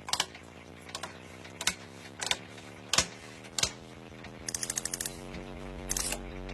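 A series of separate sharp clicks and taps, with a quick run of about ten ticks about four and a half seconds in, over a faint steady low hum.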